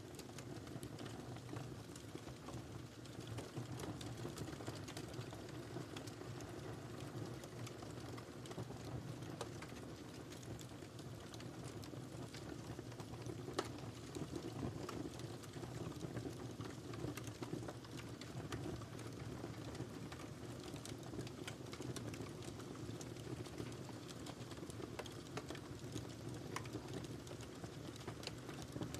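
Wood fire burning in a fireplace: a steady low rush of flames with frequent small, irregular crackles and pops.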